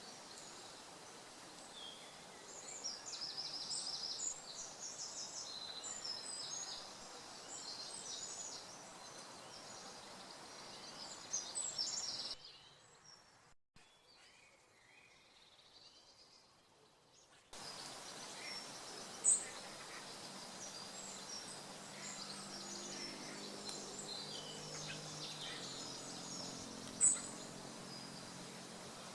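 Woodland birdsong: several small birds singing and calling over a steady outdoor hiss, dropping away for a few seconds about halfway through. A low droning hum joins in for a few seconds near the end.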